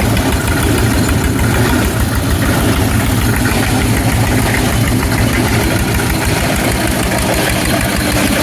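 Single-cylinder Eicher tractor diesel engine running steadily with a fast, even low thudding, powering a plastic scrap grinding machine.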